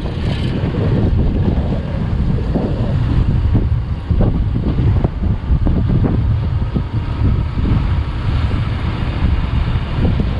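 Wind buffeting the camera's microphone in a loud, steady low rumble, with a Honda Unicorn's single-cylinder motorcycle engine running underneath as it rides slowly.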